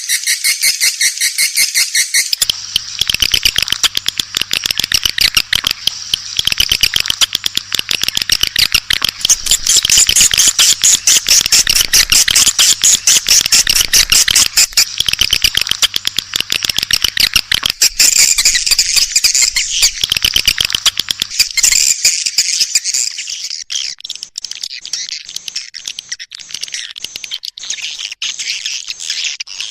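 Edible-nest swiftlet calls from a swiftlet lure recording: a dense, unbroken twittering of rapid, high chirps from many birds at once. It swells to its loudest in the middle stretch.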